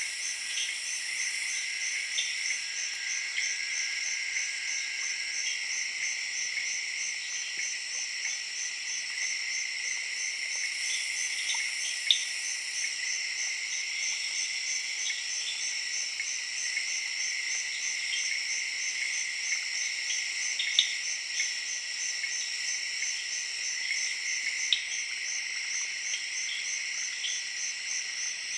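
Night chorus of crickets and tree frogs in a tropical jungle: a steady shrill trill with a fast, even pulse over a continuous band of chirping. A few short, sharp calls stand out, about 12, 21 and 25 seconds in.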